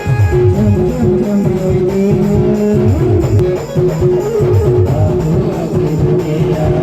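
Adivasi band playing timli dance music: a plucked-string lead melody over a moving bass line and a steadily repeating beat.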